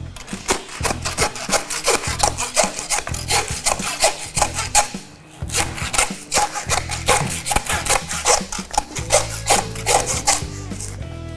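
Butcher's hand bone saw rasping back and forth through pork rib bones in quick strokes, with a short pause about five seconds in: the cut that separates the belly from the loin. Background music plays underneath.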